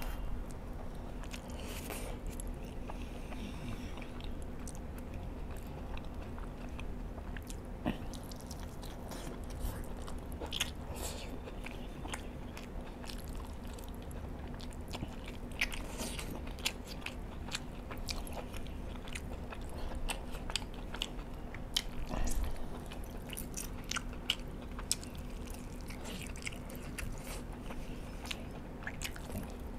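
Close-miked chewing and biting as rice and chicken are eaten by hand, with many scattered sharp clicks over a steady low hum.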